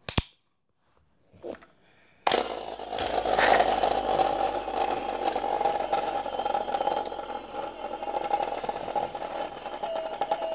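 A few sharp clicks, then about two seconds in a machine starts abruptly and runs steadily to the end.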